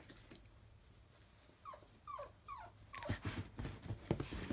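Chinese crested dog giving about four short, falling whines, then scrabbling and knocking about on the bedding in the last second or so.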